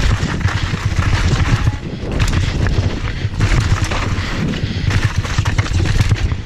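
Downhill mountain bike ridden fast over loose rocky gravel: a dense rattle and clatter of tyres on stones and of the bike knocking over the bumps, with many sharp knocks over a low rumble.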